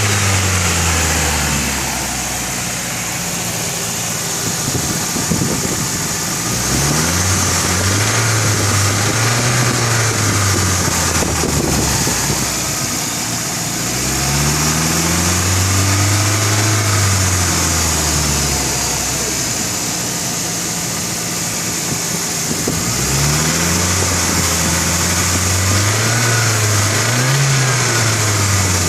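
Nissan CA18DET 1.8-litre turbocharged four-cylinder engine revved up and let fall back toward idle about three times, each rev lasting a few seconds. It is being run to show a strange internal noise, a knock, that the owner hears between 2000 and 3000 rpm.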